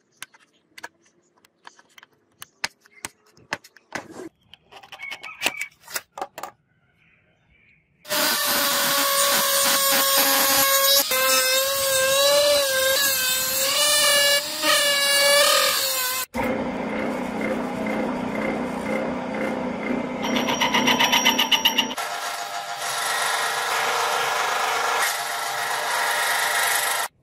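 Light clicks and taps for the first several seconds. From about eight seconds, a handheld rotary tool with a cutoff wheel cuts slots into a metal disc: a loud high whine whose pitch wavers as the wheel bites. From about sixteen seconds, a metal lathe turns the disc with a steadier, noisier machining sound.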